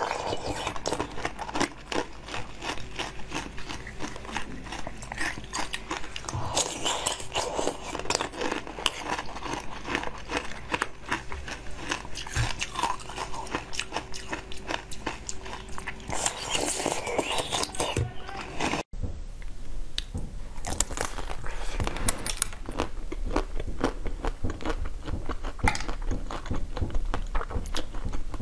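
Close-up eating sounds: wet biting, sucking and chewing of jelly balls on sticks. About two-thirds through, after a brief dropout, the sound changes to biting and crunching into the hard chocolate shell of a frozen ice-cream bar.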